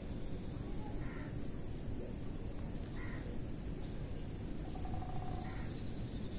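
A bird calling three times, about two seconds apart, over a steady low background noise.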